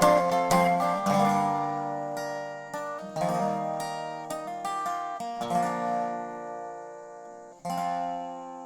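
Acoustic guitar strumming chords in an instrumental break between sung verses of a country song; a handful of chords are struck, each left to ring and fade before the next.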